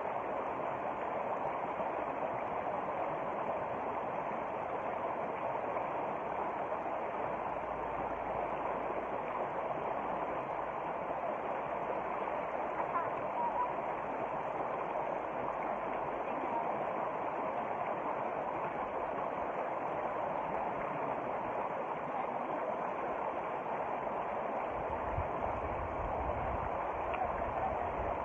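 Shallow stream running over rocks and small rapids, a steady rush of water, with a low rumble of wind on the microphone twice.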